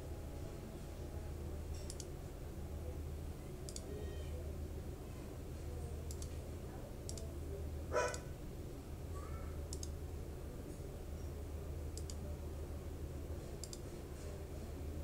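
Computer mouse clicking faintly every second or two over a steady low hum, with one louder click about eight seconds in.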